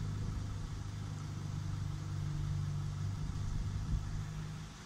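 Camper van's diesel engine idling steadily.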